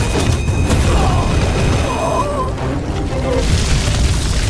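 Movie sound effects of a fiery explosion: a deep, continuous blast rumble with crashing debris, under background music.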